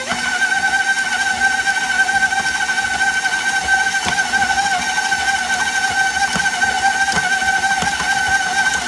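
Electric stand mixer with a flat beater mixing stiff cookie dough as almonds are worked in. The motor speeds up right at the start, then runs at a steady high whine, with faint knocks from the beater and dough.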